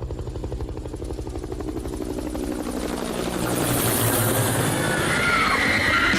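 Helicopter rotor chopping in a steady low rhythm, with a hissing whoosh building louder through the second half.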